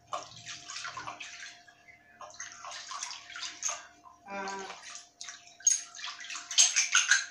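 Water splashing and sloshing in a basin as hands rub and rinse small brass pieces, in irregular bursts that are loudest near the end. A brief pitched sound comes about four and a half seconds in, over a faint steady hum.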